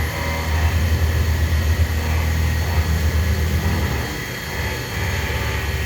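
A high-temperature laboratory ash furnace running, giving a steady low hum with a hiss over it. The hum eases briefly about four seconds in.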